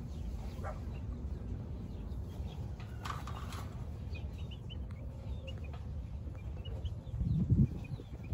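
Chickens clucking and giving short calls from the pens, over a steady low rumble, with a louder low thump about seven seconds in.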